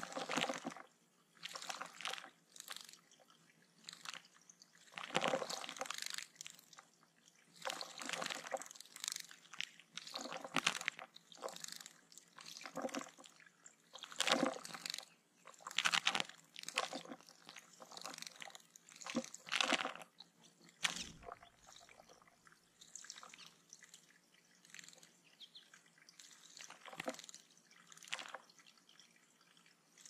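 American goldfinches bathing in shallow water, beating their wings in it: repeated short bouts of splashing at irregular intervals.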